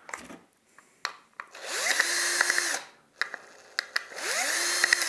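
Bosch cordless drill-driver backing out the screws of a sewing-machine foot-pedal controller. It makes two short runs, each spinning up with a rising whine and running steadily for about a second, with a few small clicks between them.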